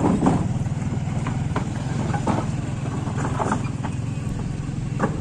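A motorcycle engine running steadily at low revs, with irregular knocks and rattles over it.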